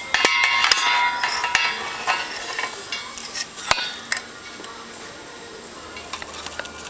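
Metal clinking and ringing as motorcycle wheel spokes and their fittings are handled: a dense run of clinks for the first two and a half seconds, then a few sharp clicks around the fourth second.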